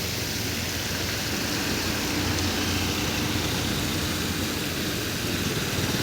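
Water tanker truck's engine running steadily under an even hiss of water spraying onto the road.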